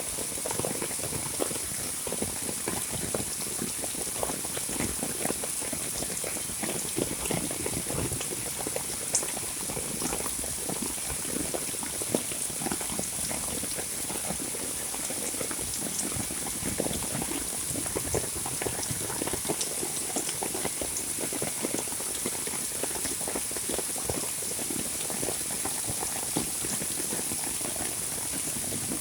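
Heavy monsoon rain falling steadily, a dense patter of countless drops close by, with a constant high hiss over it.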